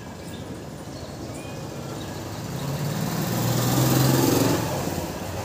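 A motor vehicle's engine approaching and passing close by. It grows louder over the first few seconds, is loudest about four seconds in, then drops away.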